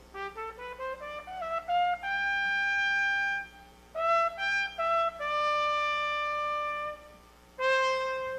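Solo trumpet playing an unaccompanied phrase: a quick rising run into a long held note, then about four seconds in a few short notes leading to another long held note, and a new held note near the end.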